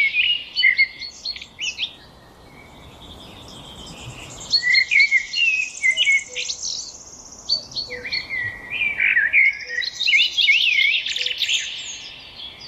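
Songbirds singing: quick chirps and rapid trills from more than one bird, overlapping, with a lull about two seconds in before the singing picks up again around four and a half seconds.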